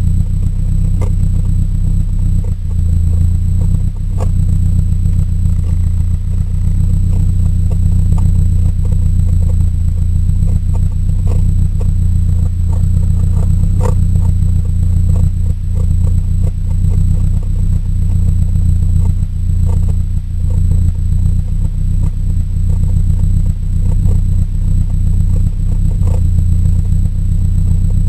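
Mercedes-Benz 190E exhaust running steadily: a loud low rumble with irregular clicks and ticks through it. It is a weird exhaust sound that the car never made before, which the owner takes for something broken in the exhaust.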